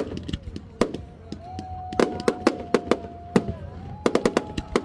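Aerial fireworks going off in rapid bangs and crackles, in a quick cluster about two seconds in and another near the end, over a long steady tone.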